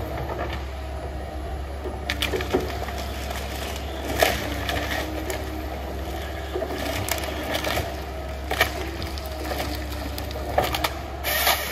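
Tigercat 822D tracked harvester's diesel engine running steadily under a series of sharp cracks and snaps of wood as its Tigercat 570 harvesting head works a tree stem and its branches; the loudest crack comes about four seconds in.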